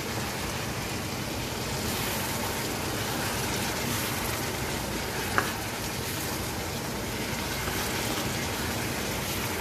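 Chicken and vegetable strips sizzling in a nonstick wok, a steady hiss, with one sharp click about five seconds in.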